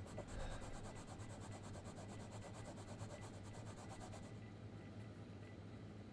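A scratch card being scratched off in rapid, even strokes, about ten a second, stopping about four seconds in, over a faint steady low hum.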